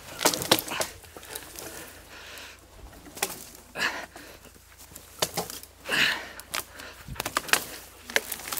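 Footsteps crunching through snow-covered brush, with dry twigs and branches snapping and scraping in irregular bursts.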